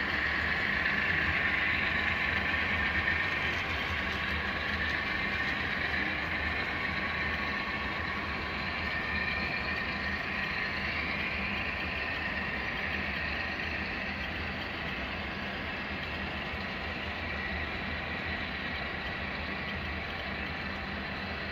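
Model freight cars rolling past on the layout's track: a steady rolling rumble and whine of small metal wheels on rail, easing slightly in loudness.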